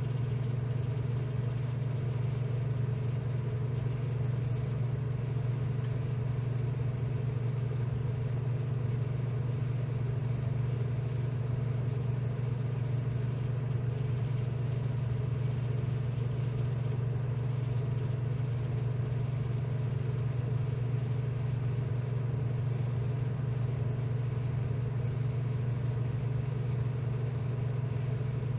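Steady low hum of a BGA rework station's hot-air blower and cooling fans running, even and unchanging throughout.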